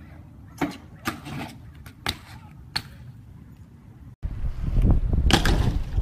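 BMX bike riding on concrete: a low rolling rumble broken by four sharp knocks of the wheels and frame hitting the ground. About four seconds in it cuts to a louder rumble with more knocks, the loudest just past the middle of that stretch.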